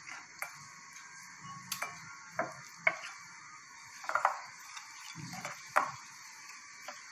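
A spoon mixing a thick flour-and-spice batter in a bowl as water is worked in a little at a time, with scattered light clinks and taps against the bowl at irregular intervals.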